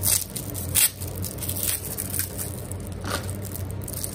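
Plastic wrap crinkling and rustling in a few short bursts as it is peeled off a round of cheese.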